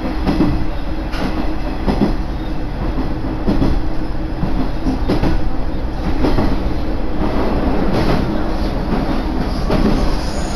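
Koumi Line railcar heard from inside while under way: a steady rumble of wheels on rail, with clicks over the rail joints now and then.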